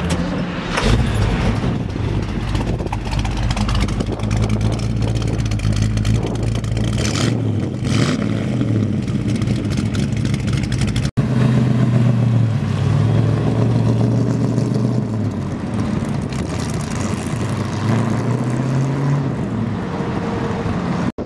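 Chevrolet 350 small-block V8 with headers and dual exhaust starting up and idling, with several short revs that raise and drop the pitch.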